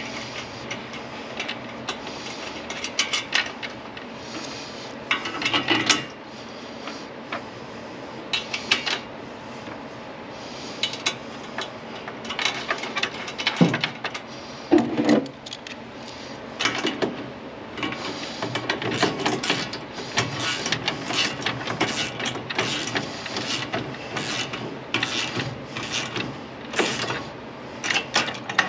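Small metal bolts, nuts and fender washers being handled and threaded together by hand, with irregular clicks, clinks and scraping of metal on metal as a bed-rack foot is bolted loosely to a truck's cargo rail.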